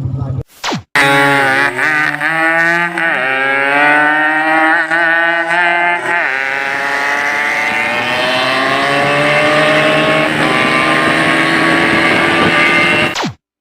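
Yamaha RX-King two-stroke motorcycle engine revved hard: several quick throttle blips that dip and climb, then one long rev rising steadily in pitch for about seven seconds before it cuts off suddenly.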